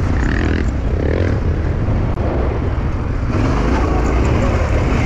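Yamaha Ténéré 700 motorcycle's parallel-twin engine running steadily as the bike is ridden off-road, under a dense low rumble.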